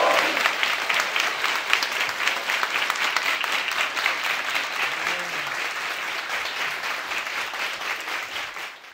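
Crowd applauding, dense clapping that slowly fades out and cuts off at the end.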